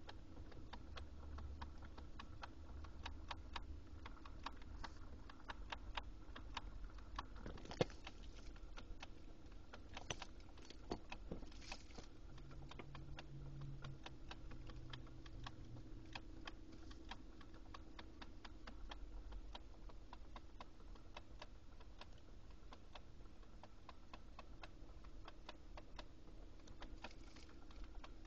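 Lexus GX470 making a weird clicking noise: fast, irregular small clicks, several a second, over a faint steady hum, with one sharper click about eight seconds in.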